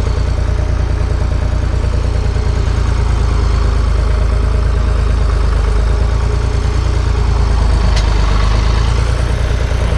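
Vehicle engine idling steadily, loud and close, with a fast low pulsing; a faint click about eight seconds in.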